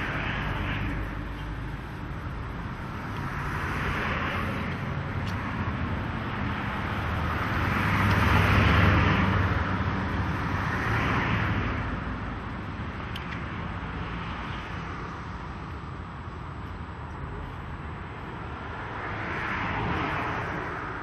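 Street traffic: vehicles passing one after another, each rising and fading over a couple of seconds, the loudest about eight to nine seconds in.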